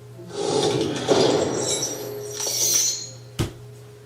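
Glassy clinking and crashing from the show's soundtrack for about three seconds, ending in a single sharp knock.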